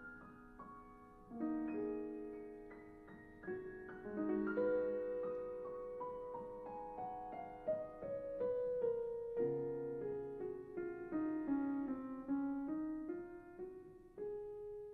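Solo piano music: a steady run of notes, each struck and left to ring.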